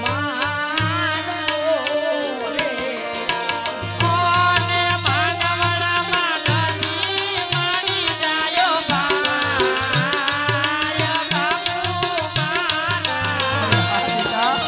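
A Gujarati folk-devotional song performed live: a singer's wavering melody over harmonium and a hand-played barrel drum (dholak) keeping a steady beat. The music gets louder about four seconds in.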